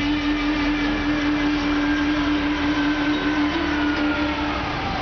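A city bus driving past, its engine giving a steady hum under road noise, with a faint whine that slowly falls in pitch as it goes by.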